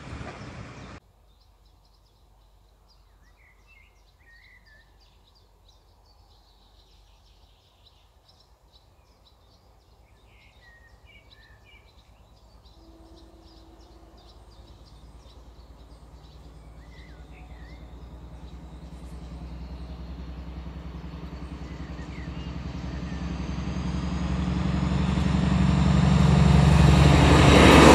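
Birds chirping over quiet countryside, then a DB Class 218 diesel locomotive hauling double-deck coaches approaches, its engine rumble rising steadily from faint to loud, with a high whine from the wheels joining as it comes close near the end. A diesel railcar is heard for about the first second before it cuts off.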